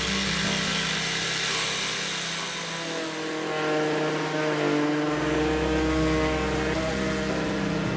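A power tool's electric motor running steadily while shaping the cedar wheelbarrow handles, its pitch shifting a few times as the load changes.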